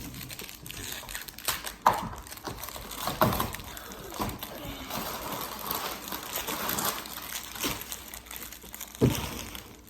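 A plastic wrapper crinkling and crackling in irregular bursts, with scattered sharp clicks, as it is handled and worked open by hand. This is typical of a child struggling to open a sealed trading-card pack.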